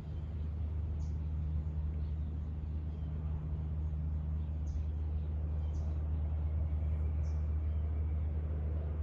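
A steady low hum from a motor or distant traffic, with about four short, high bird chirps spread through it.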